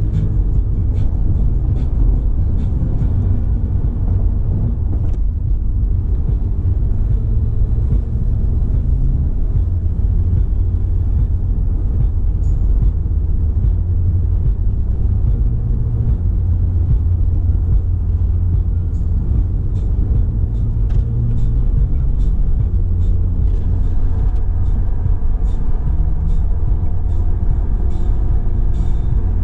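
Steady low rumble of a car driving on the road, under instrumental background music.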